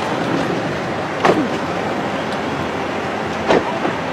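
Steady street noise of idling motorcade SUVs and traffic, with two sharp thuds, one about a second in and one about three and a half seconds in, from SUV doors being shut.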